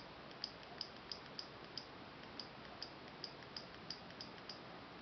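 Faint, repeated clicking of the button on a gStick pen-shaped mouse, about two to three clicks a second, each click telling the paint program to lay down paint.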